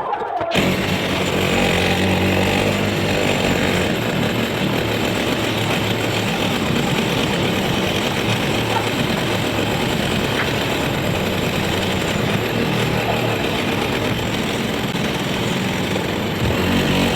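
An engine running steadily with a low drone, cutting in abruptly about half a second in.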